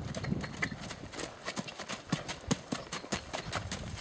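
Hoofbeats of a ridden horse on a sand-and-dirt arena, a regular series of dull thuds and clicks at about three a second.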